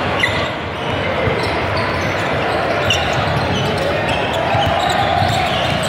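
Basketball game sounds in a gym: a ball dribbled on the hardwood court and short sneaker squeaks over steady background chatter.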